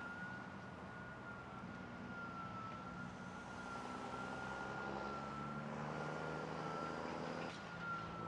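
Emergency vehicle siren holding a high, slightly wavering pitch over the low running of vehicle engines.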